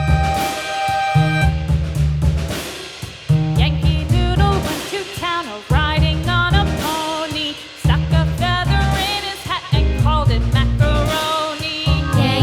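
Background music with a steady bass and drum beat and a singing voice.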